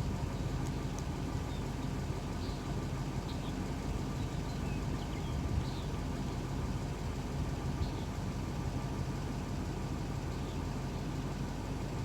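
Steady low mechanical hum, with a few faint ticks scattered through it.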